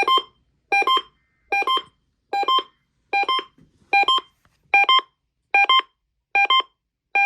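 Electronic beeper sounding a short two-note beep about every 0.8 seconds, a lower note then a higher one each time, repeated about ten times.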